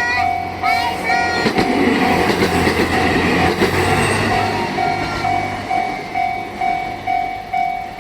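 Japanese level-crossing warning bell clanging steadily, about two strokes a second, while a train passes through the crossing. The train's rumble and wheel clatter are loudest from about a second and a half in to the middle, then fade away, leaving the bell ringing on.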